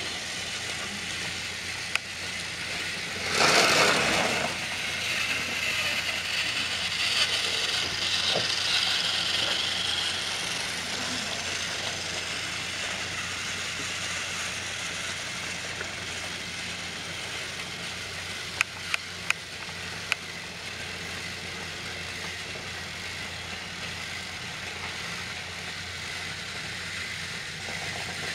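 Battery-powered TrackMaster toy train motors whirring and rattling along plastic track. There is a louder rush about three seconds in and a few sharp plastic clicks about two-thirds of the way through.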